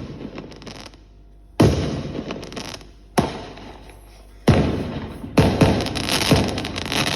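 Firework shells bursting: three single bangs about a second and a half apart, each dying away, then a quicker run of bangs with crackling in the last two seconds.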